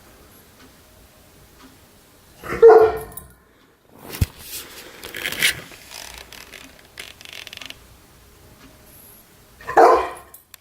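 German shepherd giving two short, throaty vocal sounds, the dog's 'purring' noises, several seconds apart. A sharp click and some rustling come between them.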